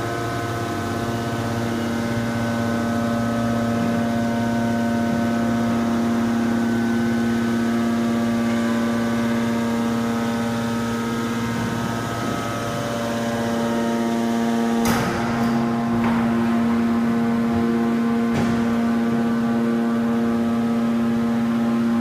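Hydraulic scrap-car press running, its hydraulic power unit giving a steady hum with a constant whine as the ram lowers the pressing platen. About fifteen seconds in there is a short, noisy burst over the hum.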